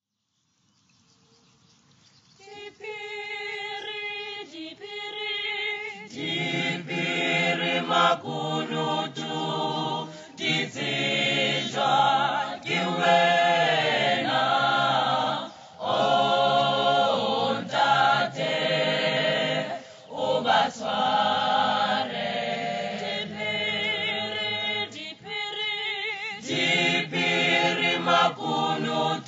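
Mixed choir of young men and women singing a cappella in harmony. A few high voices begin about two and a half seconds in, and the full choir with low voices joins around six seconds in.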